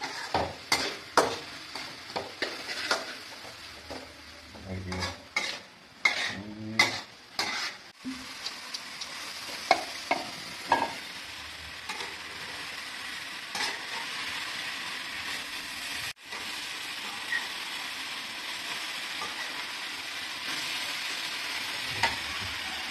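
Stir-frying in a steel wok: a metal ladle and spatula clink and scrape against the pan many times in the first half, under a sizzle. For the rest, once pork and long beans are frying together, a steady sizzle runs with only the odd scrape.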